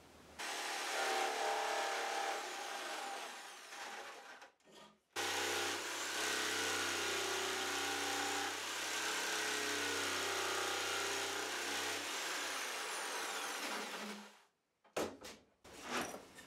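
Electric jigsaw cutting through a scrap wood board, in two runs with a short break about five seconds in; the cutting stops about two seconds before the end, followed by a few short knocks.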